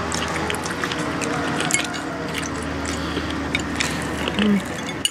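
Background voices murmuring, with forks clicking against plates and chewing.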